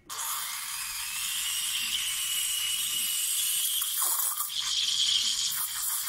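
De'Longhi Icona Vintage ECOV311 steam wand switched on suddenly, hissing steadily into a stainless steel pitcher as it steams and froths cold water mixed with latte art liquid. The hiss shifts in tone a little past halfway as the pitcher is moved on the wand.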